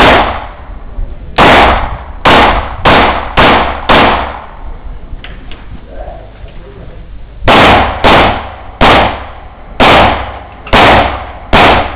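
Handgun shots fired in two fast strings, each shot sharp and loud with a short echo. First comes a string of five about half a second apart, then a pause of about three seconds, then six more at roughly one-second spacing.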